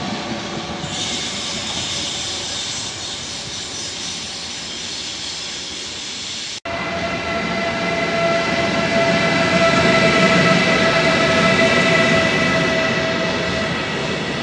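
An electric train rolls into a station. After an abrupt cut, a Siemens Vectron electric locomotive hauling hopper wagons passes along the platform. The wagons rumble, and a steady high-pitched whine is held for several seconds.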